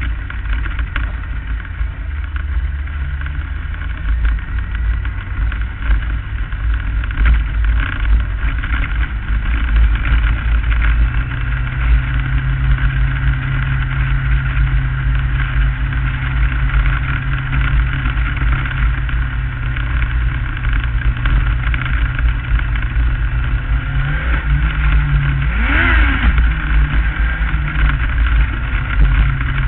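Onboard sound of a non-wing Lightning Sprint car racing on a dirt track: its motorcycle engine runs at a steady pitch under a heavy low rumble on the car-mounted microphone, with a brief rise and fall in revs about 25 seconds in.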